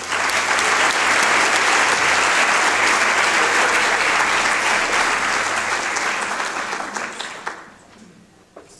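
Audience applauding, starting at once and fading away about eight seconds in.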